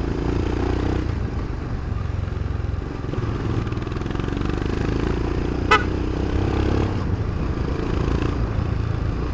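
Royal Enfield Scram 411's single-cylinder engine running steadily under way, with one short beep of a newly fitted PIAA OTO Style dual horn about six seconds in.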